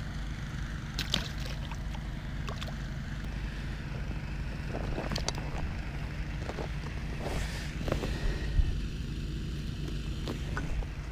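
A steady low rumble with scattered light clicks and knocks, and one sharper knock near the end.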